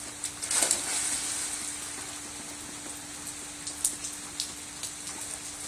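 A person jumping feet-first into a swimming pool, a loud splash about half a second in, followed by steady rain hissing on the water and the paving, with a few sharp drip ticks.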